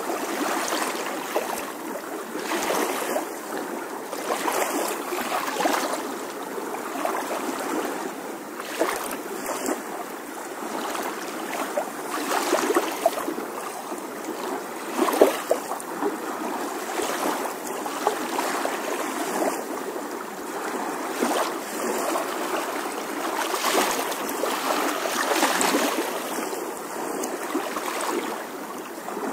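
Steady rushing noise like running water, swelling and easing in level without a break.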